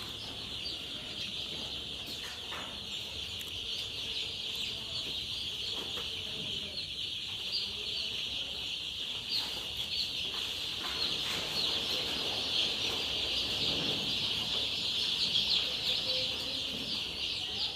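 A large flock of young chicks cheeping continuously, a dense overlapping chorus of high peeps.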